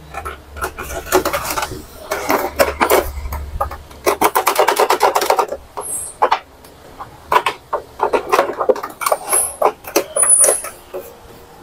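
Epson L120 inkjet printer's mechanism cycling during a test run, in several bursts of rapid clicking and gear ratcheting from the carriage and paper-feed drive.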